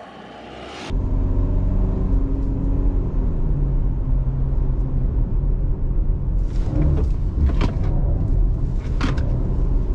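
Pickup truck's diesel engine and road rumble, starting suddenly about a second in; the engine note drops about three seconds in, and a few short knocks come later.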